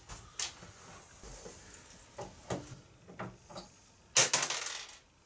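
Scattered light knocks and clicks from the plastic parts of a kids' ride-on buggy being handled during assembly, with a louder rustle about four seconds in.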